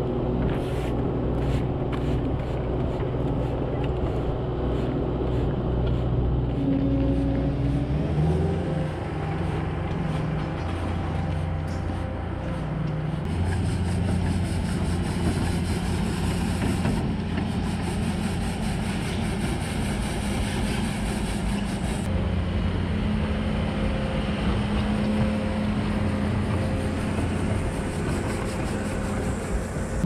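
Engine of a farm machine running steadily while sweeping out a concrete bunker silo. The engine speed shifts about eight seconds in, then holds.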